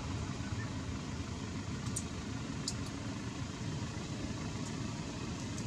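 Steady low rumble with a hiss over it, with a few faint, short clicks about two seconds in and again near the end.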